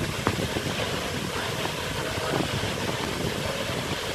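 Steady outdoor background noise, a low rumble with hiss and no clear single source.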